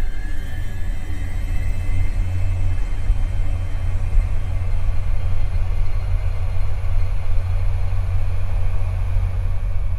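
Loud, deep, steady rumble that holds throughout, with a faint rising high tone fading out in the first couple of seconds.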